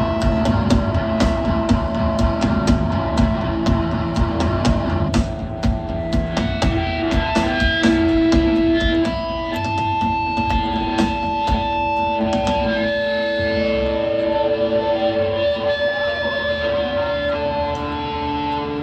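Hardcore punk band playing live: drums and guitars together for about the first five seconds, then the drums drop out and long held guitar notes ring on.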